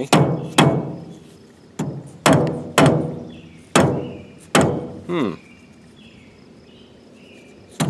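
Hammer blows on the cast-iron governor housing of a Bovaird & Seyfang oilfield engine, tapping it loose. About seven irregular, ringing strikes come in the first five seconds, then a pause and one more strike near the end.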